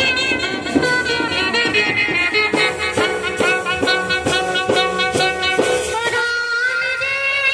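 Indian brass band playing a film-song melody on trumpets and horns over a regular beat; near the end the horns hold one long note.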